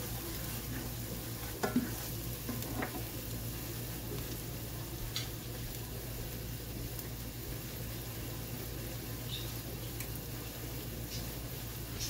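Diced bell pepper and dried minced onion sizzling steadily in olive oil in a nonstick skillet, with a cooking spoon stirring and scraping against the pan in the first few seconds, then a few light clicks.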